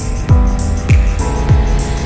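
Background music with a steady beat: a deep, pitch-dropping kick drum about every 0.6 seconds under held chords and light cymbal ticks.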